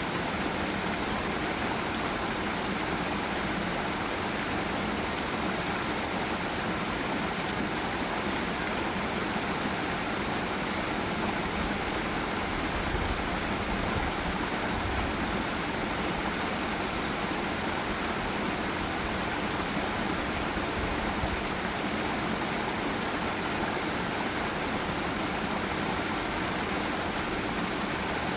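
Forest waterfall and river water rushing and splashing in a steady, even wash of noise.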